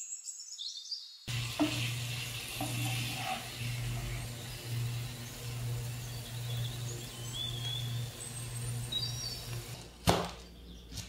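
Recorded forest birdsong chirping throughout. From about a second in, a steady sizzling hiss of beef liver frying in a pan, under a low hum. About ten seconds in, a single sharp knock as a knife slices through a red onion onto a wooden cutting board.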